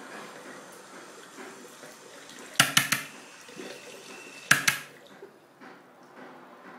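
Water running steadily, broken twice by brief loud clusters of sharp clattering knocks, about two and a half and four and a half seconds in; the running dies away soon after the second clatter.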